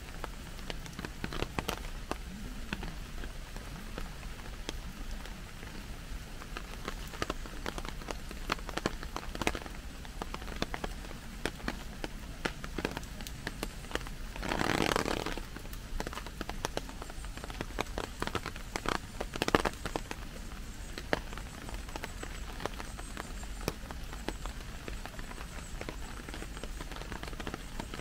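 Rain falling steadily on an umbrella, with many separate drops ticking sharply on the canopy. About halfway through there is a louder rush lasting about a second.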